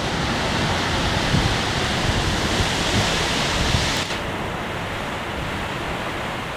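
Heavy rain pouring in a strong windstorm, a dense steady hiss, with gusts buffeting the microphone in low thumps. About four seconds in the high part of the hiss drops off suddenly and the roar goes on softer.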